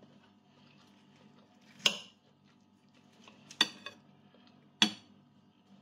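A metal fork clinking against a dinner plate three times, sharp and ringing, while food is picked up, over a faint low hum.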